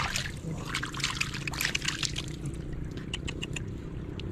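Shallow water splashing and trickling in uneven bursts, with a few short clicks near the end over a steady low hum.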